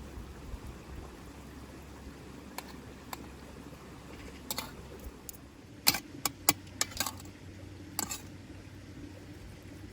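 A few light, sharp clicks and knocks, bunched mostly a little past the middle, over a low steady background hum.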